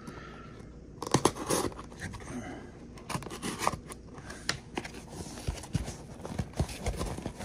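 A knife blade slicing through packing tape and brown kraft-paper wrapping on a cardboard box, then the paper tearing and the cardboard flaps scraping as the box is opened: irregular scratches, rips and clicks starting about a second in.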